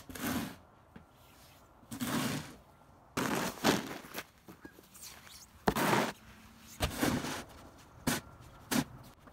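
Plastic snow shovel scraping along pavement and pushing snow, in about seven separate strokes a second or so apart.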